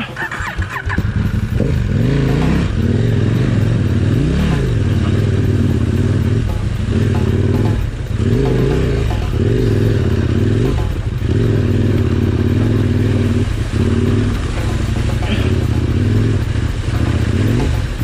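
KTM 1190 Adventure R's V-twin engine under way off-road, its pitch rising and falling with the throttle and easing off briefly several times.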